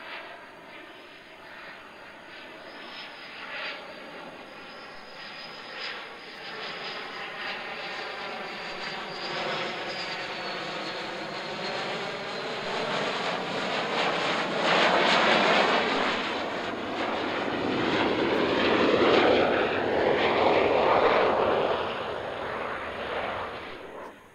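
Boeing F/A-18 Super Hornet's twin General Electric F414 turbofan jet engines at approach power as the fighter flies a gear-down landing approach. A high-pitched whine rides over the jet noise at first. The sound grows steadily louder, peaks about two-thirds of the way through as the jet passes closest, and drops away near the end.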